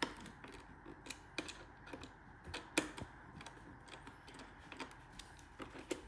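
Faint, irregular small clicks and ticks of a hand tool working a screw on a 3D printer enclosure's door hinge or handle as it is tightened down.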